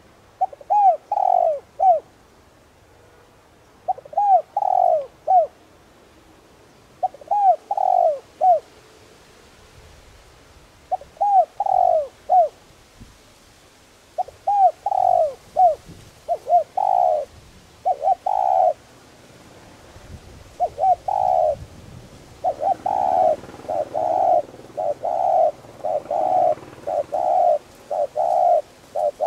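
Spotted dove cooing: short groups of three or four low coos repeated every few seconds, coming faster and almost without a break from about three-quarters of the way through. Keepers call this voice type a pure 'đồng' (brassy) voice.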